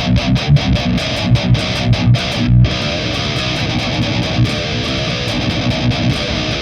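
Heavily distorted electric guitar tuned to drop C, played through a high-gain Boss GT-10 patch: a heavy metal riff of fast, repeated low chugs with sharp attacks.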